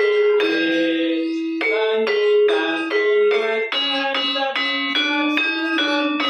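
Instrumental music: a melody of bright, bell-like pitched notes, about two to three notes a second, each struck sharply.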